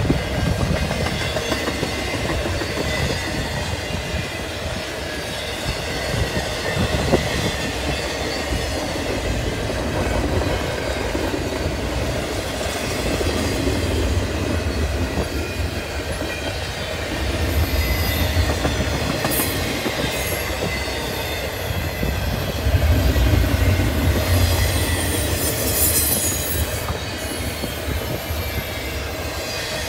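Double-stack intermodal container train rolling past, with a steady rumble and clatter of wheels on rail and a thin wheel squeal at times. Swells of low rumble about two-thirds of the way through sound like wind gusting on the microphone.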